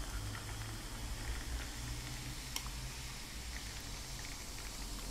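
Carbonated energy drink poured from a can into a glass in a thin stream, with the foam fizzing steadily. One small click about two and a half seconds in.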